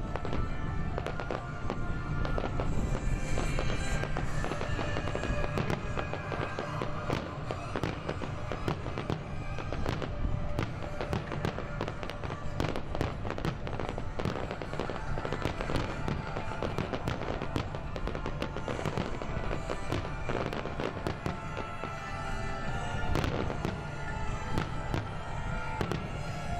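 Aerial firework shells bursting and crackling in quick succession throughout, many sharp reports close together, with music playing underneath.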